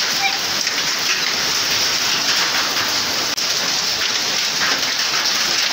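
Hail and rain falling on a grass lawn: a dense, steady patter of countless small impacts.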